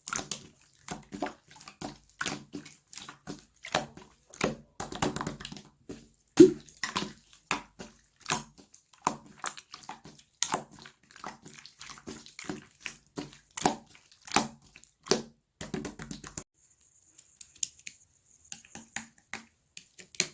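Slime being squished and pressed by hand: a quick, irregular run of wet clicks and sticky pops, thinning to a few faint ones about sixteen seconds in.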